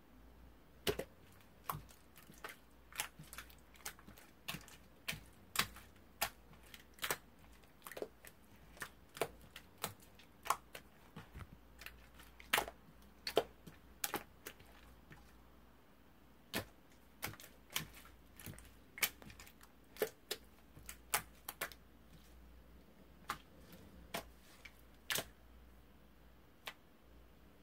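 Irregular sharp clicks, about one or two a second and uneven in strength, over a faint low hum.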